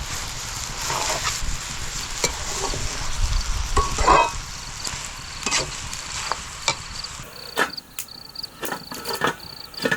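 Food frying in a pan, a steady sizzle with clatters of stirring. About seven seconds in the sizzle cuts off suddenly, leaving a high pulsing insect chirp and a few sharp clicks.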